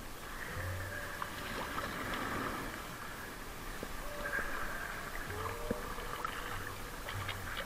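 Water rushing and splashing around a six-person outrigger canoe as it runs on a wave.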